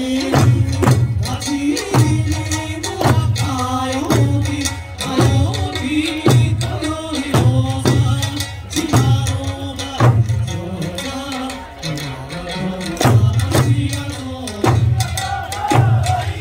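Eisa drumming: large Okinawan barrel drums (ōdaiko) and small hand drums (pāranku) struck together at a steady beat of roughly one strike a second, over Okinawan folk music with a sung melody.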